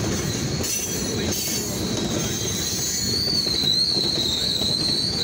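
Freight train boxcars rolling past, steel wheels rumbling steadily on the rails. A high, wavering wheel squeal sets in about three seconds in and keeps going.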